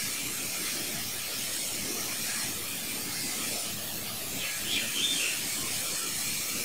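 Steady background hiss with no distinct event; a couple of faint, brief sounds come about five seconds in.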